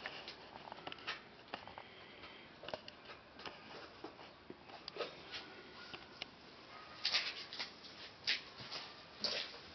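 Faint rustling and scattered soft ticks of kittens moving about on a fabric bedspread, with a cluster of louder rustles about seven seconds in.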